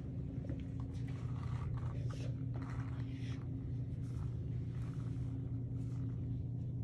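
A steady low hum with faint, scattered rustling and brushing sounds over it.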